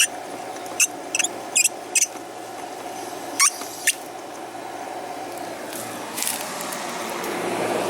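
A run of short, sharp high squeaks, four of them in quick succession about a second in and two more a little later. Near the end the sound of a passing vehicle rises.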